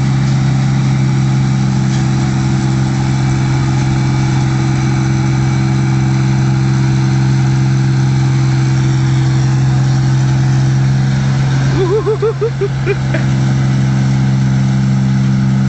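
New Holland 8060 combine harvester running steadily as it crawls through a wet rice paddy, a constant low engine drone. About twelve seconds in, a few short rising calls briefly sound over it.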